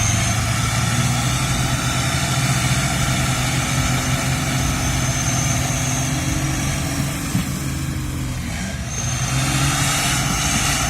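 Heavy diesel engine running hard under load as a tractor strains to pull a stuck timber truck out of mud. The engine eases off briefly about eight seconds in and then picks up again, with a high whistle coming and going over it.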